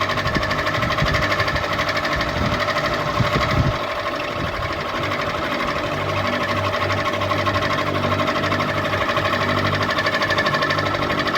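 Ceiling fan running: a steady motor hum with a fast, even mechanical clatter. An uneven low rumble settles into a smooth low hum about four seconds in.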